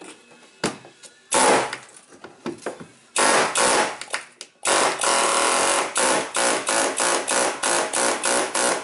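Pneumatic air hammer chiselling at a rusted fuel-pump lock ring to drive it loose: two short bursts, then a longer run from about halfway that turns into quick on-off bursts about three a second.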